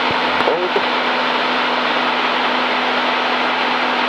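Steady cabin drone of a Cessna 182's piston engine and propeller in a climb, heard as an even hiss with a constant low hum.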